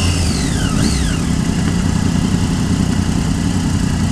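Triumph Daytona 675 motorcycle riding with wind rushing over the microphone; in the first second the engine's pitch falls, rises in a quick blip and falls again as the rider rolls off and downshifts, then the wind and engine noise hold steady.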